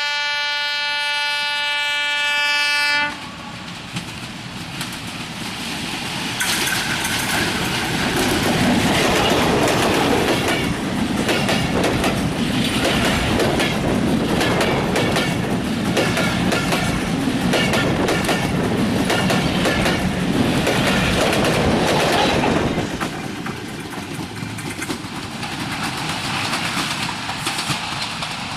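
Diesel train horn: one steady blast of about three seconds. Then a broad-gauge Bangladesh Railway passenger train runs past, its wheels clacking rhythmically over the rail joints, growing louder, staying loud for some fifteen seconds and dropping off about twenty-three seconds in.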